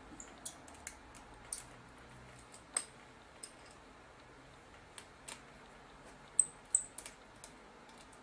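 Small, sharp metallic clicks and ticks at irregular intervals: a small screwdriver working the tiny screws that hold the loading motor in a camcorder tape deck's metal chassis. The two loudest clicks come close together about six and a half seconds in.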